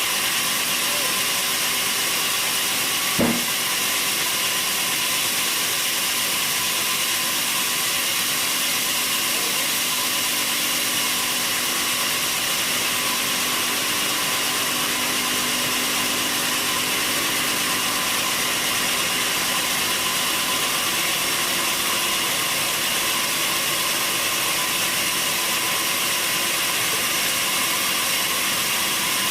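Sawmill saw running with a steady mechanical hiss and hum, with one sharp knock about three seconds in.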